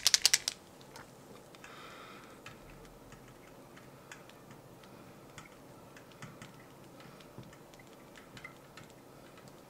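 A liquid chalk marker being shaken, its mixing ball rattling in quick sharp clicks that stop about half a second in. After that come faint scattered ticks and scratches of the marker tip writing on the glass board.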